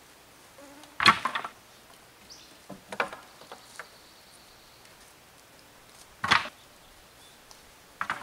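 Thin wooden poles clattering against each other and the ground as they are handled and dropped, in a few short sharp bursts, the first about a second in the loudest. A fly buzzes briefly past near the start.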